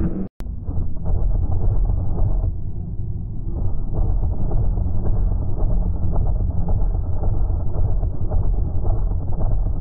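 Loud, muffled rumbling street noise picked up by a phone's microphone, heavy in the low end. It cuts out completely for an instant just after the start.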